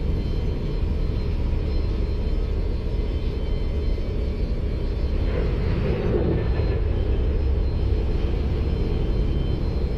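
Steady low machinery rumble of airport ramp equipment while the lavatory waste tank is being filled with rinse fluid, with a brief swell about five to seven seconds in.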